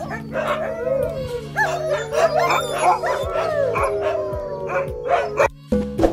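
A pack of wolf-dogs and huskies howling together, several long wavering howls overlapping, mixed with barks and yips. The howling cuts off about five and a half seconds in and a short musical chime begins.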